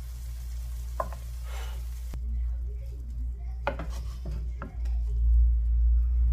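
Bread slices pressed and rubbed into corned mutton frying in a nonstick pan, with a light sizzle and a few scraping clicks against the pan. A low rumble grows louder about five seconds in.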